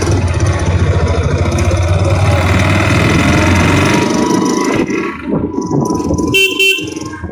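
Motorcycle engine running steadily while riding in slow traffic, heard close up from the bike. The level dips about five seconds in, and a short vehicle horn honk sounds near the end.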